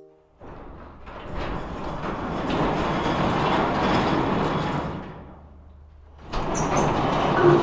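Large sliding barn door rolling open along its track in two pushes: a scraping rumble of about four seconds, a short pause, then a second push near the end.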